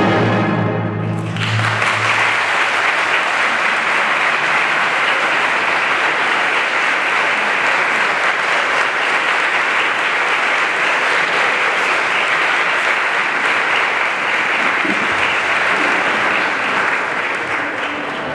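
An orchestra's held final chord ends a little over a second in, and an audience breaks into steady applause that carries on, fading slightly near the end.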